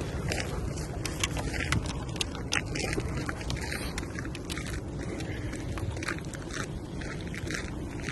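Irregular crunching and snapping clicks over a steady low rumble, like wind on the microphone.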